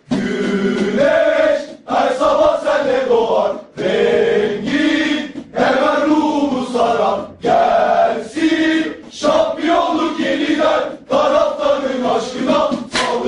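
Football supporters' chant sung in unison by a group of male voices, in sung phrases broken by short pauses every couple of seconds.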